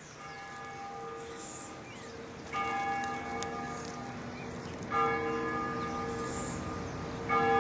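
A church bell tolling slowly, a new stroke about every two and a half seconds, each ringing on long after the strike.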